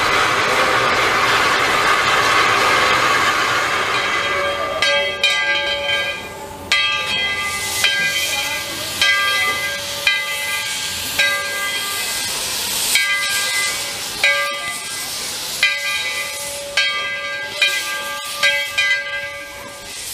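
Narrow-gauge steam locomotive No. 12 venting steam in a steady, loud hiss. About five seconds in, its bell starts ringing, about one stroke a second, over the hiss.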